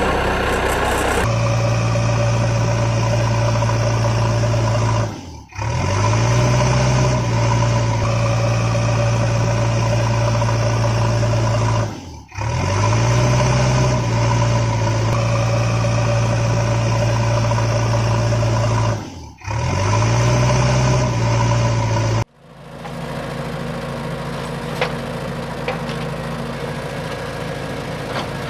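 Engine sound effect idling steadily, looped: it cuts out and restarts three times at even spacing, each time with a short rising rev before settling. About 22 seconds in it gives way to a quieter, lower hum with a few faint clicks.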